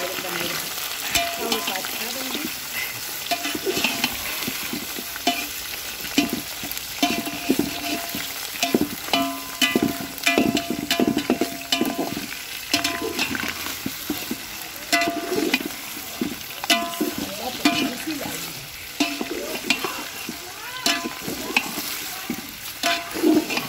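Parboiled meat frying in hot oil with golden-brown onions in an aluminium pot, a steady sizzle, while a metal ladle stirs and scrapes against the pot in repeated clinks and scrapes. This is the frying of the meat before the ground spices go in.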